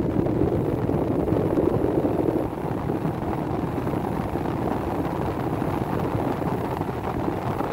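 1975 Climatrol (Fedders) window air conditioner running with its rotary compressor and fan on, a steady, really noisy drone; the compressor mounts are shot. The sound eases off a little about two and a half seconds in.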